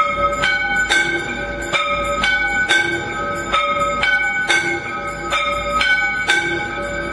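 Temple bells rung for aarti, struck in a steady rhythm of about two strikes a second, each strike ringing on with several tones into the next.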